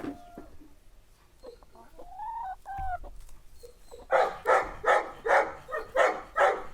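Farm animal calling: two short rising calls, then from about four seconds in a loud, rapid run of calls, roughly two to three a second.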